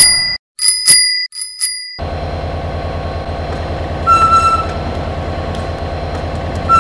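A bell rings in a quick run of about five strikes. Then a battery-powered Lego Duplo toy locomotive runs along its plastic track with a rapid, even clatter, and a short high beep sounds about four seconds in.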